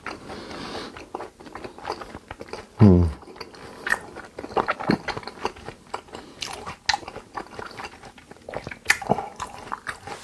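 Close-miked chewing and biting of a person eating yukhoe (Korean raw beef), a string of short wet clicks. About three seconds in comes one brief low sound that falls in pitch.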